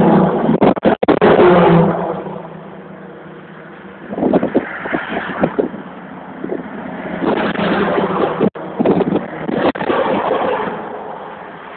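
Vehicles passing on a busy main road below: a loud pass-by in the first two seconds fades, then further vehicles swell past around four seconds in and again from about seven to ten seconds. The recording drops out for an instant a few times.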